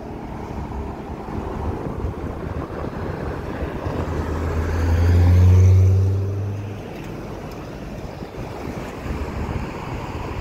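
Dodge Viper's V10 passing close at low revs: a deep, steady exhaust drone swells about four seconds in, peaks, then drops away abruptly near seven seconds. Steady road traffic runs underneath.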